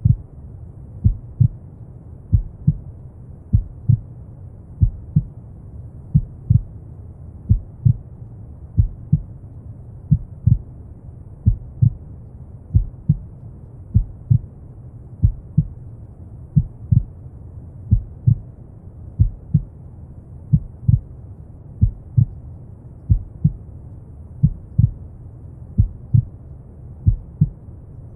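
Slow heartbeat, a paired lub-dub thump about once a second, over a steady low rumble of brown noise.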